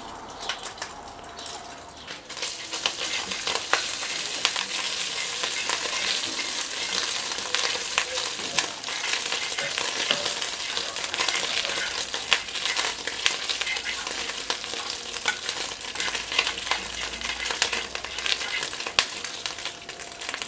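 Lamb tail fat sizzling and spitting in a small frying pan as it renders down into cracklings, stirred with a fork. The sizzle rises about two seconds in and stays thick with fine pops.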